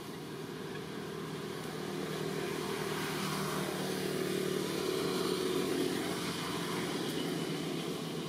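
A motor engine running with a steady hum, growing louder over a few seconds and then easing off.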